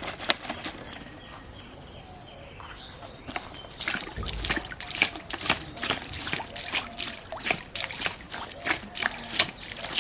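Pond water sloshing and splashing in quick, irregular bursts, several a second from about four seconds in, with a dull thud as they begin.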